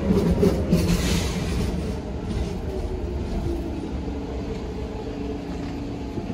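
New York City Subway train moving along the track, a steady rumble with wheel and rail noise that slowly fades.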